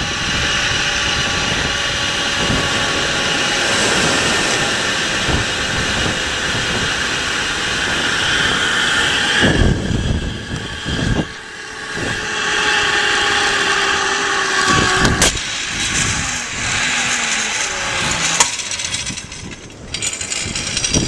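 Zipline trolley running down a steel cable, with wind rushing over the microphone: a steady whirring rush with a faint whine that slowly drops in pitch. A few sharp knocks come in the second half as the rider nears the landing.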